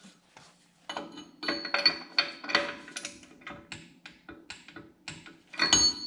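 Irregular metallic clicks and clinks with a ringing tone from a new front disc-brake rotor and hub being spun by hand and worked with a socket tool on the spindle nut, while the wheel bearings are being seated and their preload set.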